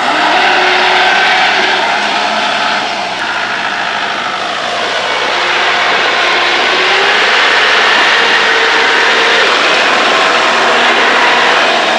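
Kubota L4508 tractor's four-cylinder diesel engine run hard at high revs as the tractor, stuck axle-deep in paddy mud, tries to drive out. The revs ease off for a couple of seconds around three to five seconds in, then climb again.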